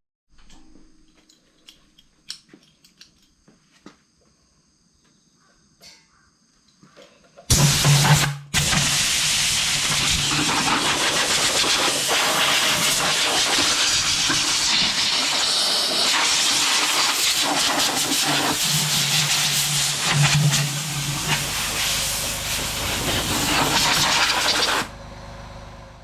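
A few light clicks and taps, then a loud steady hiss that starts about seven seconds in. It breaks off for a moment, then runs on for about seventeen seconds before cutting off suddenly.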